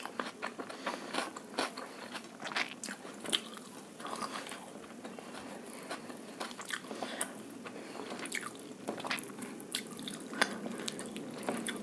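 Close-miked eating of egg fried rice and chilli chicken: chewing and biting, with many irregular crunches and small mouth clicks.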